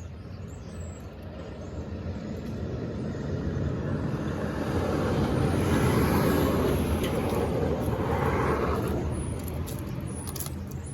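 A vehicle passing on a highway: a rushing road noise that swells to its loudest about halfway through, then fades away. Faint high bird chirps come through near the end as it dies down.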